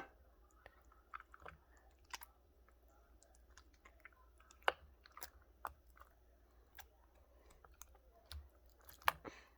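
Slime being handled on silicone pop-it fidget toys: faint scattered sticky clicks and squelches, about one a second.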